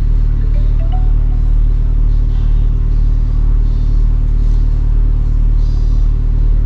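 1988 Toyota Celica ST162's four-cylinder engine idling steadily, heard from inside the cabin as a constant low hum.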